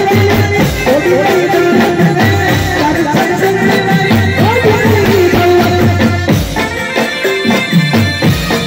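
Live Gujarati garba song: male vocals over keyboard and drums, amplified through a PA system.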